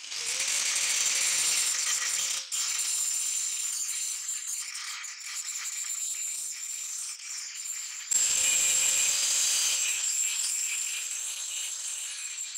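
INGCO angle grinder with a thin cut-off disc cutting into leaf-spring steel: a high steady whine over a gritty rasp as the disc bites the metal. It breaks off for a moment about two and a half seconds in and comes back louder about eight seconds in.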